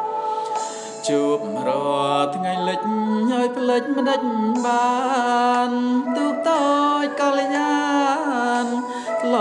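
A man singing a slow melody, holding long notes that bend and waver in pitch, with short breaks between phrases.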